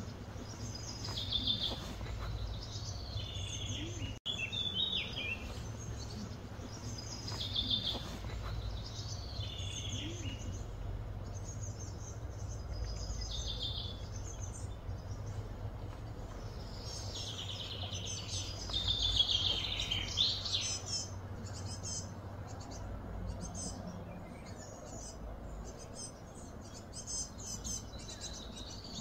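Wild birds calling and chirping in the trees, short high phrases repeating every couple of seconds, with a busier run of calls about two-thirds of the way through, over a steady low background hum.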